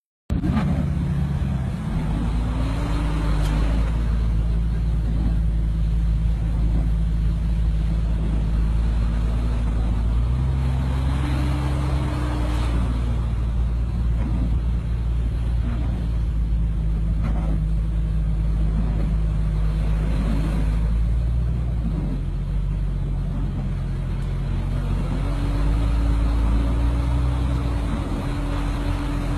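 A 4x4 vehicle's engine running steadily, its pitch rising, holding and falling back four times as it revs up under throttle and eases off.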